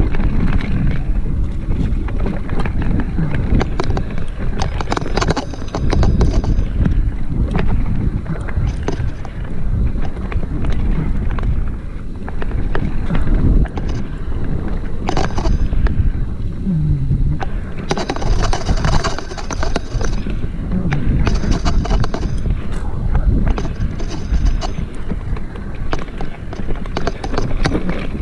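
Mountain bike rolling fast down a rough dirt singletrack: a steady rumble and rattle of the bike over bumpy ground with wind buffeting the microphone, and many small clicks and knocks. Several brief high-pitched squeals.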